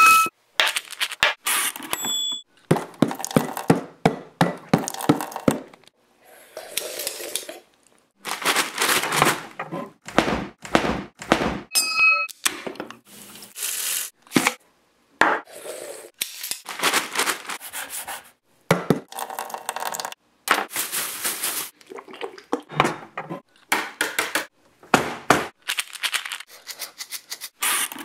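Chopped-up kitchen sounds edited into an uneven rhythm: a quick run of thunks, knocks, clatters and scrapes, each cut off abruptly by short gaps of silence, with a couple of brief beeps.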